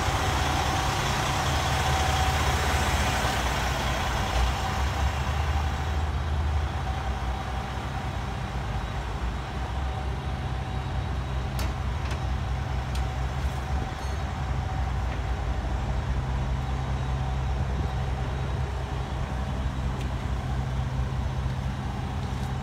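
A heavy diesel engine idling steadily with a low hum. Its higher noise fades about six seconds in, as the sound source is left farther away.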